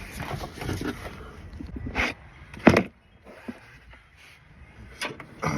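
A few sharp knocks and some clatter from tools and parts being handled, the loudest about two and a half seconds in.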